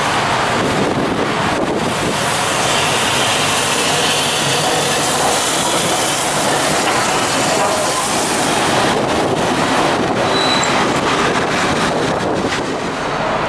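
Steam locomotive No. 85 'Merlin', a GNR(I) compound 4-4-0, and its train of coaches passing close by at low speed, with a steady loud rolling of wheels on rail and a few clicks at the rail joints.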